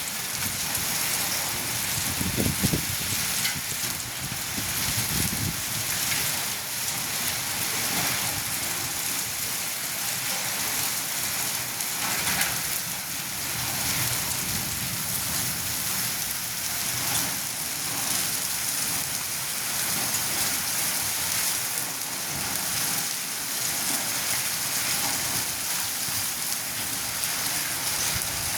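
Hail and heavy rain pelting down steadily, a dense hiss made of countless small impacts.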